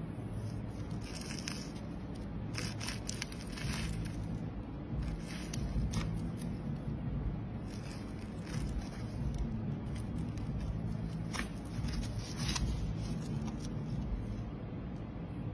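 A small blade cutting and scraping into a block of stacked thin coloured layers, in irregular short crisp strokes and scratches over a steady low hum.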